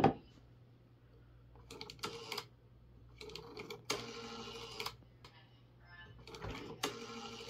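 The rotary dial of a 1950s telephone being dialled: four runs of mechanical whirring and clicking as the dial spins back after each digit. A thump at the very start.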